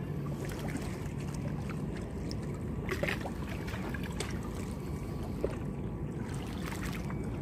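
Steady low outdoor rumble of wind on the microphone, with a few faint scattered clicks from handling the spinning rod and reel.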